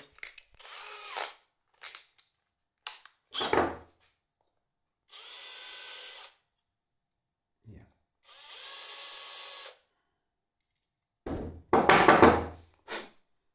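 18 V cordless drill with a countersink bit running in two short, steady bursts of a second or so each, widening and deburring holes in a plastic fuse holder. Loud knocks and rubbing close to the microphone come in between, the loudest near the end.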